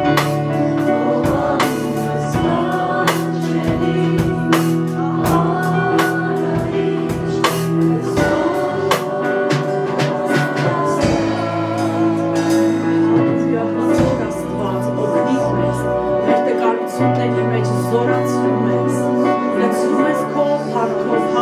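Worship band playing a slow Christian worship song: several voices singing over keyboard, with sustained chords and a steady beat.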